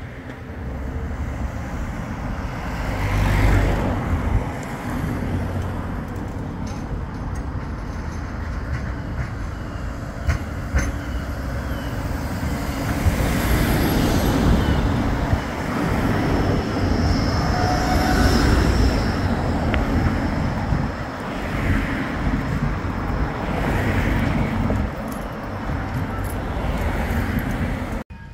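Bombardier Flexity 2 tram running past on street track, its motors and wheels on the rails getting louder as it comes alongside in the middle, with road traffic around it.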